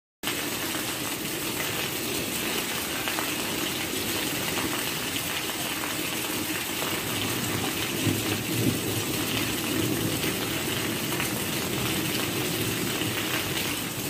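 Steady rain: an even hiss of falling water with fine patter, starting abruptly and cutting off suddenly.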